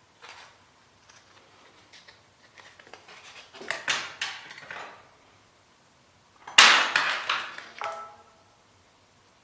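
Tools and small parts being handled on a hard work surface: scattered light clatters and rustles, then a louder clatter about two-thirds of the way in that ends with a brief metallic ring.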